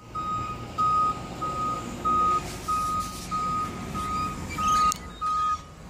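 Flatbed tow truck's backup alarm beeping as it reverses: nine evenly spaced single-tone beeps, about one and a half a second, stopping near the end, over the truck's low engine rumble.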